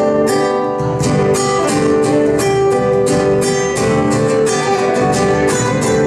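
Acoustic guitar strummed live in an instrumental passage of an Argentine folk song, with regular strokes and ringing chords.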